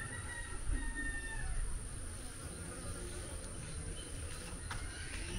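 Quiet background ambience: a steady low rumble under a thin, steady high-pitched hiss, with a faint thin buzzing tone during the first second or so.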